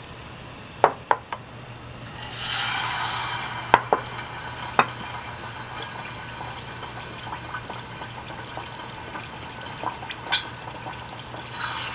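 Battered sweet potato slices frying in tempura oil at a low 160°C. The oil is quiet at first with a few sharp clicks; about two seconds in a slice goes in and the oil sizzles up, then settles into steady frying with scattered pops. Near the end it sizzles up again as another slice goes in.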